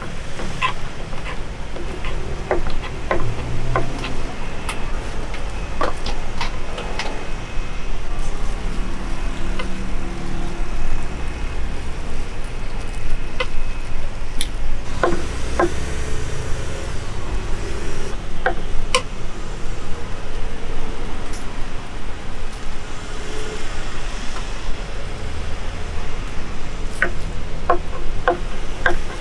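Road traffic running steadily past, swelling as vehicles go by, with scattered sharp clicks and knocks on top.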